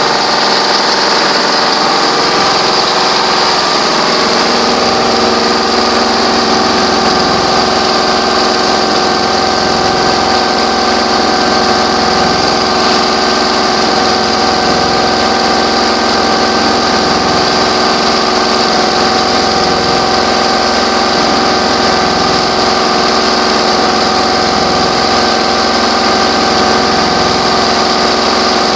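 High-speed 1500 rpm multi-head quilting machine running, its row of needle heads stitching quilted fabric. It makes a loud, steady mechanical hum of several tones with a hiss over it.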